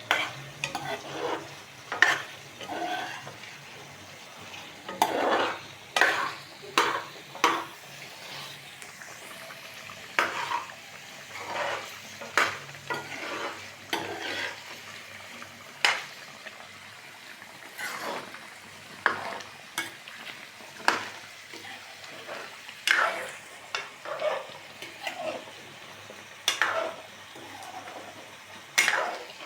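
A spoon stirring and scraping curry around a pan as it is fried down (bhuna), in irregular strokes about every second or two, over a low steady sizzle of hot oil.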